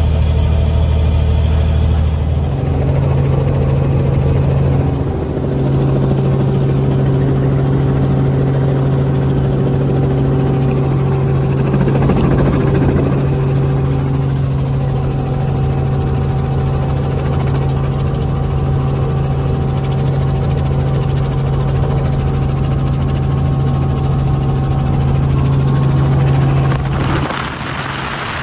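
Robinson R44 helicopter's six-cylinder Lycoming piston engine and rotor running steadily, heard from inside the cabin with the doors off. About two and a half seconds in, the pitch steps up and holds there. Near the end, the sound changes abruptly to a quieter, hissier rush.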